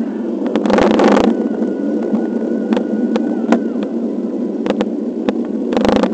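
Wind and road rumble on the microphone of a camera riding along on a bicycle, with scattered clicks and rattles from bumps. A louder rush of noise comes about a second in and again near the end.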